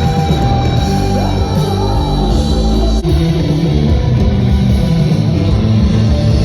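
Rock music with guitar, laid over the video, with a change in the arrangement about three seconds in.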